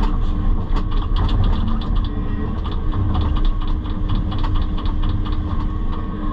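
Excavator's diesel engine running steadily, with a quick run of clicks and rattles between about one and four seconds in.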